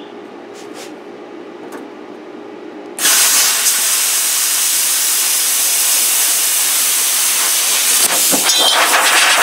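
Plasma cutter cutting sheet metal: a loud, steady hiss that starts abruptly about three seconds in, with some crackling near the end. Before it, a steady low hum.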